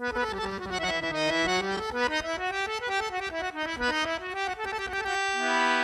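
Instrumental music on a free-reed keyboard instrument, accordion or harmonium in sound, playing a quick flowing melody. It settles on a long held chord near the end.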